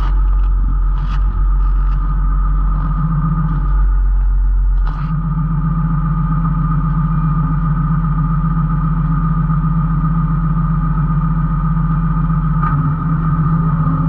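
Tractor engine running steadily. There are a couple of sharp knocks in the first second or so, and the deep part of the engine note drops about five seconds in.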